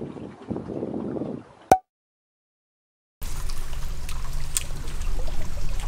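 Water sloshing and gurgling for about a second and a half, cut off by a sharp click and over a second of dead silence (an edit cut), then a steady low rumble with scattered faint ticks.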